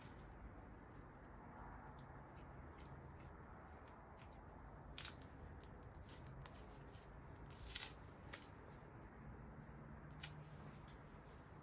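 Dry onion skin being peeled and cut away with a kitchen knife: faint papery crackles and scattered sharp clicks, the clearest about five seconds in and a few more near the end.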